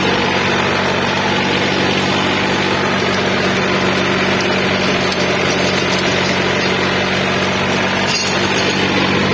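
John Deere 3028 mini tractor's three-cylinder diesel engine running steadily under load at economy-PTO speed, driving a rotavator that churns the soil between sugarcane rows. The engine holds its revs without dropping.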